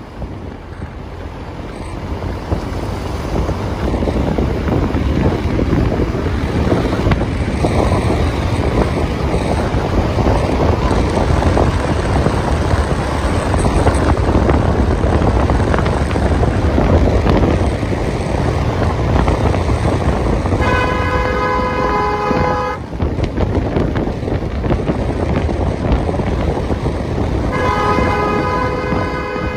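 A car driving on a winding road, its engine and tyres making a steady rumble that builds over the first few seconds. The horn is sounded twice: for about two seconds roughly two-thirds of the way through, and again near the end.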